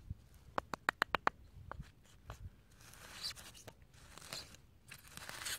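Charcoal being crushed and ground into powder in a shell with the end of a wooden stick: dry crunching and scraping, with a quick run of about six sharp clicks about a second in.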